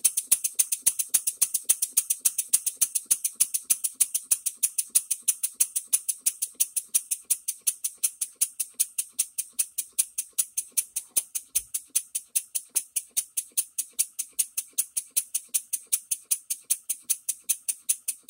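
Bar stock model steam engine running on compressed air, its exhaust puffing with a hiss in a steady beat of about five a second. No knock is heard now, though the valve timing still needs adjusting and air is leaking at the inlet.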